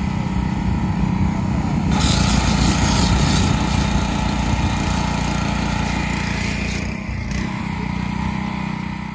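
Pressure washer running steadily while its wand sprays foam onto a golf cart. The hiss of the spray comes in about two seconds in.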